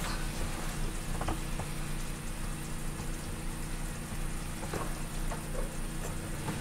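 Food in pans on a propane stovetop sizzling and simmering steadily, with a few faint clicks about a second in and again near the end while the oven below is being lit.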